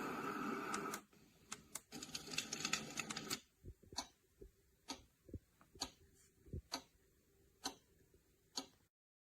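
Steady white noise from a sound machine stops about a second in. A short stretch of fainter hiss with a few clicks follows, then a slow, uneven series of single sharp clicks, before the sound cuts out abruptly near the end.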